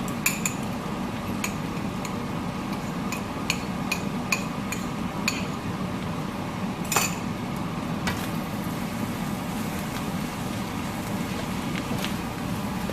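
A utensil tapping and clinking against a pan while stir-frying noodles and ground beef, a dozen or so sharp knocks, the loudest about seven seconds in, over a steady low hum.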